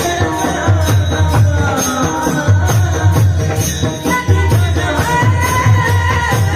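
Music: a melody over a steady, regular drum beat with jingling percussion like a tambourine.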